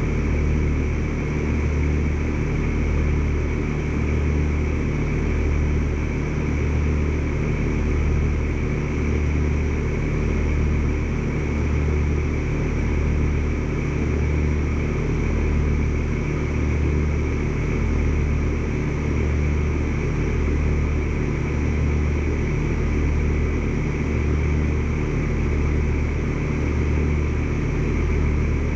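Carrier Comfort heat pump outdoor unit running, a steady low hum of the compressor and fan with an even throb about once a second.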